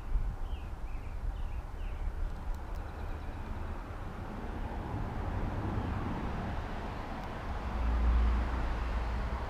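A low outdoor rumble that swells to its loudest about eight seconds in and then eases. A few short bird chirps come in the first two seconds.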